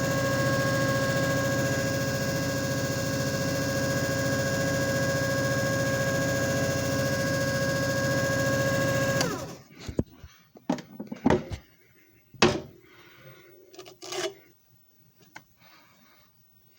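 JFJ Easy Pro disc repair machine running with a steady whine and hum, then shutting off about nine seconds in. A series of clicks and knocks follows, with a brief low buzz near the end.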